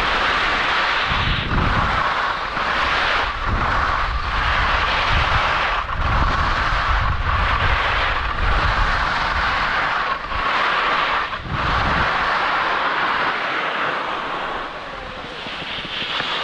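Skis hissing and scraping over soft snow on a downhill run, mixed with wind rushing over the microphone in gusty low rumbles. The noise breaks off briefly every second or two and fades near the end as the skier slows.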